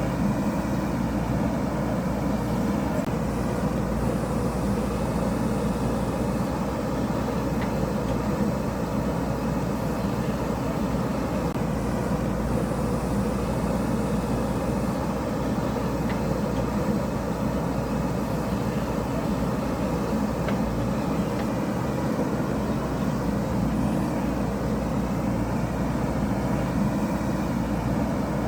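JCB backhoe loader's diesel engine running steadily while it digs.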